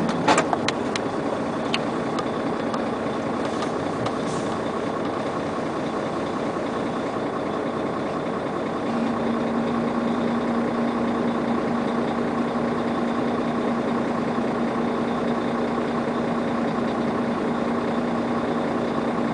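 Truck's diesel engine idling steadily; about halfway a steady low hum joins in, with a few light clicks near the start.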